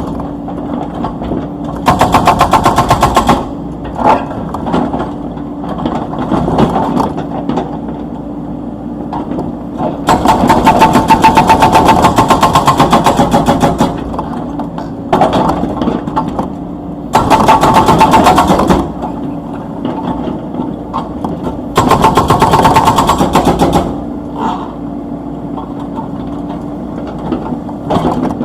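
Hydraulic breaker on a Komatsu PC78US mini excavator hammering in bursts of rapid blows, about five bursts of one to four seconds each, over the excavator's engine running steadily.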